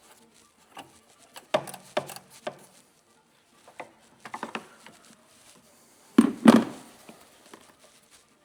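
Scattered clicks and knocks of tools and metal suspension parts being handled while a coilover is removed. The loudest is a heavier double thud about six seconds in.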